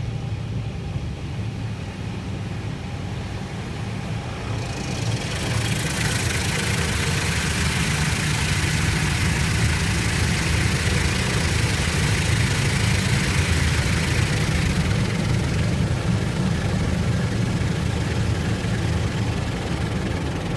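High-pressure water jets of a touchless car wash spraying against the car, heard from inside the cabin: a loud, even hiss that starts about five seconds in and eases off about fifteen seconds in, over a steady low rumble throughout.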